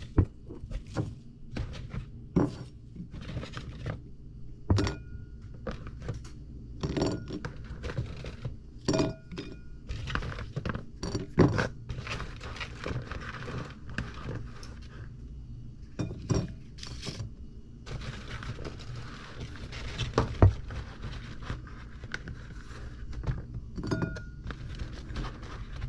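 Vegetables (tomatoes, chilies and herbs) set down by hand onto a ceramic plate: irregular light knocks, clinks and scrapes.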